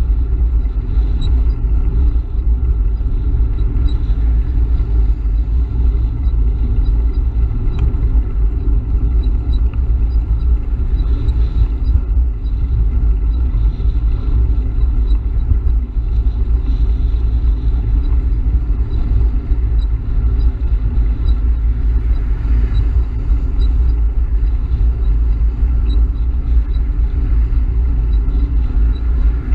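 Steady low rumble of wind buffeting a camera microphone on an e-bike moving at speed, mixed with the noise of highway traffic passing alongside.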